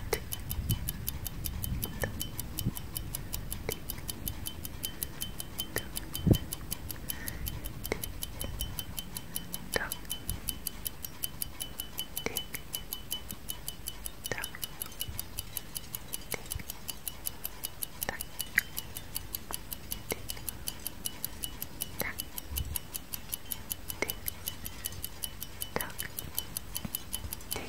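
Clock tick-tock sound effect: rapid, steady ticking, with louder single clicks every second or two.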